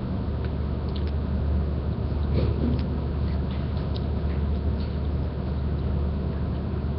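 A steady low hum with a faint hiss over it, and a few soft clicks now and then.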